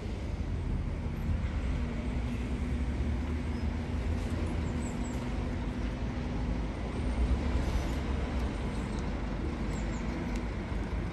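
Double-decker diesel buses, among them a Scania N230UD, running steadily as they pull in to the stop. The sound is a low engine rumble with a steady drone that fades out near the end.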